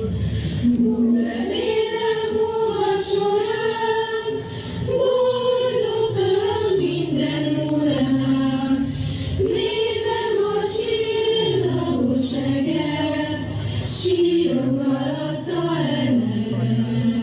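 A choir singing a slow melody in long held notes.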